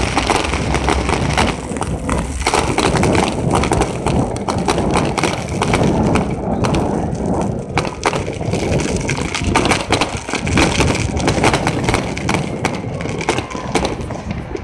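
Fireworks going off in a dense, continuous run of overlapping bangs and crackles.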